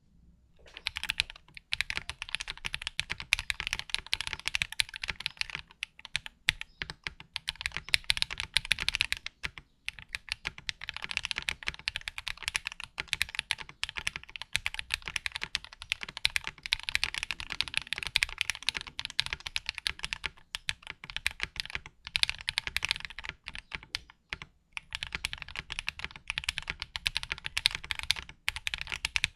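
Typing on a Freebird 60 mechanical keyboard with Akko Cream Yellow V3 linear switches: a fast, steady run of keystrokes, pausing briefly a few times.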